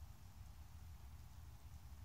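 Near silence: room tone with a steady low rumble and faint hiss.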